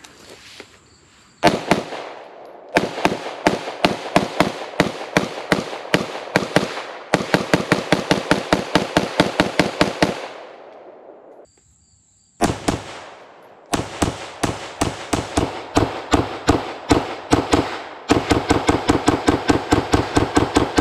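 Rapid fire from a .223 AR-style rifle emptying a 30-round magazine: a single shot, then quick strings of shots at about three to four a second, with a break of a couple of seconds about halfway and the fastest run near the end.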